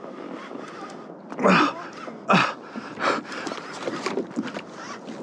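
A man grunting and panting with effort, three short loud grunts with falling pitch, as he strains to reel in a heavy fish.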